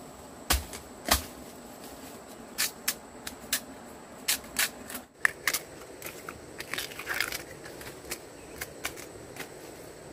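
Knife work on fresh bamboo shoots: two heavy chopping blows about half a second apart, then a run of sharp cracks and snaps. In the second half come lighter crackling and scraping as the knife trims the shoot's husk.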